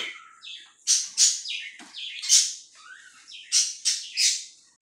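Fluffy slime made from glue, shaving cream and contact solution being squeezed and kneaded by hand, giving a string of short squishy crackles, irregular, about two a second.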